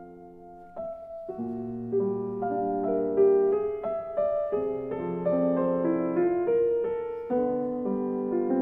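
Background music: a piano playing slow, gentle chords and melody.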